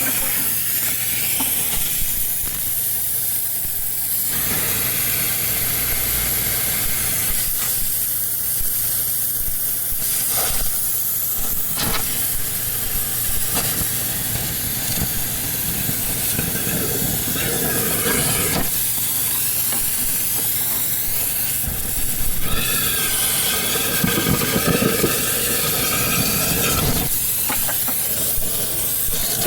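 Workshop noise from scrap-compressor work: a steady hiss that changes abruptly several times, with a few seconds of ringing, whining tones about three quarters of the way through.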